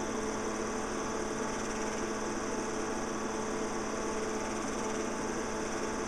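Steady mechanical whirr of a home-movie film projector running, with a constant low hum and no change in speed.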